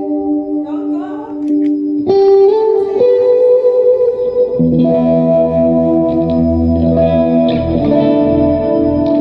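Electric guitar, a Stratocaster played through a Line 6 HX Stomp multi-effects unit straight into the house mixer, ringing out sustained chords that change every second or two, with a low note joining about halfway through. Heard through the stage monitor speaker.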